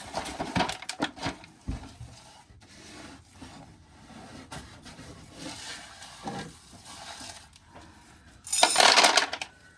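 Dried corn kernels clicking and rattling as they drop into a container, with a louder rush of kernels pouring for about a second near the end.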